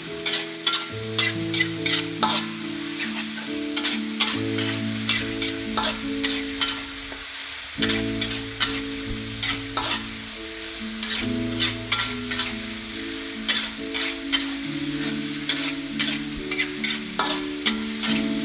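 Food sizzling in a pan while a spatula stirs it, scraping and knocking against the pan many times, over soft background music.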